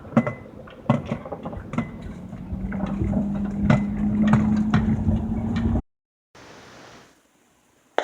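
Sprinter van driving over a rough road, heard from inside: repeated knocks and rattles as it goes over bumps, with a steady engine hum coming up about a third of the way in. The sound cuts off abruptly about three-quarters through.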